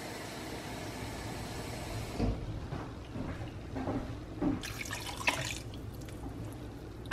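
Water being poured into a large pot of soup, splashing and pattering into the liquid.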